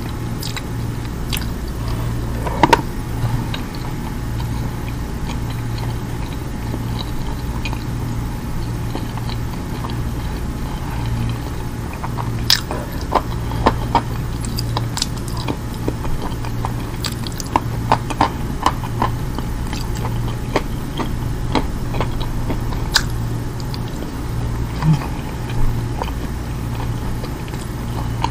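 Close-miked chewing and eating: a person eating haneeth roast meat and kabsa rice by hand, with scattered sharp mouth clicks and smacks that come thickest in the middle, over a steady low hum.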